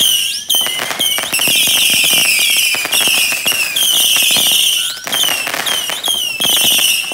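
Ground firework on pavement firing a rapid string of high whistles, each about half a second long, some running into one another, with crackling pops between them.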